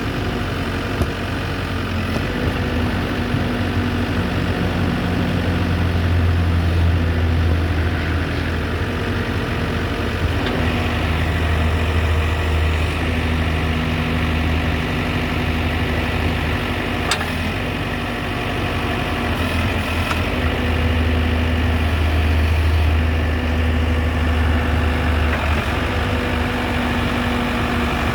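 The diesel engine of a 2003 Case 580 Super M backhoe running steadily at idle. Its low drone grows stronger for a few seconds at a time, three times over.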